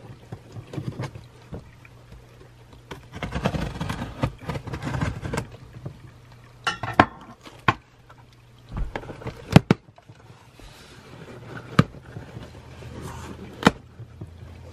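Large scissors cutting open a taped cardboard shipping box: scratchy rustling of blades through tape and cardboard, with several sharp snips and knocks of the blades and box.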